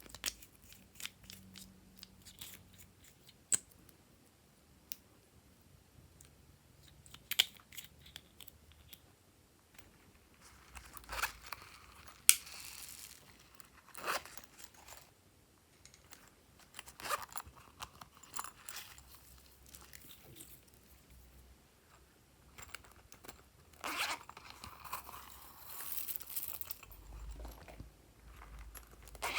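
Slime being worked by hand, squeezed and folded, giving scattered sticky clicks and pops with a few longer crackling stretches.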